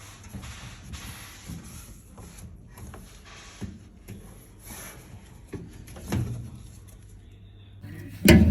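Cleaning a microwave by hand: repeated rubbing strokes with small knocks and clicks, then a couple of loud knocks near the end.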